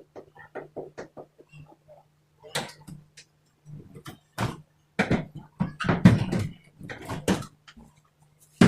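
Clicks, knocks and clatter of tools and panels as a Samsung front-load washing machine is being taken apart: a quick run of small clicks, then louder knocks and rattles in the second half and one sharp knock at the end.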